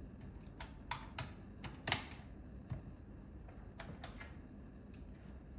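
Scattered sharp clicks and light knocks of hard plastic being handled: PlayStation game cases, a controller and a PSone console taken from a drawer, and a cable plugged into the console. The loudest knock comes about two seconds in.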